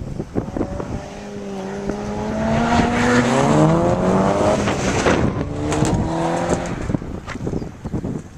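Sports car engine revving up and down as the car runs an autocross cone course, its pitch climbing and dropping with throttle and gear changes. It grows louder as the car comes near, is loudest about three to five seconds in, then fades away.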